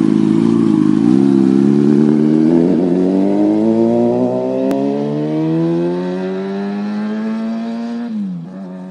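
2011 Kawasaki ZX-6R's inline-four engine through an M4 GP slip-on exhaust, pulling away hard and fading as the bike rides off. The engine note dips briefly about a second in, then climbs steadily for several seconds and drops sharply near the end.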